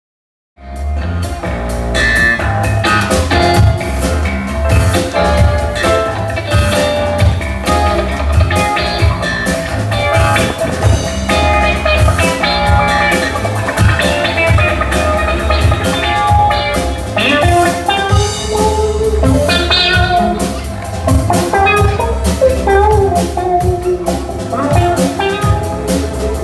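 Band music with a drum kit keeping a steady beat under melodic instruments, starting suddenly about half a second in after silence.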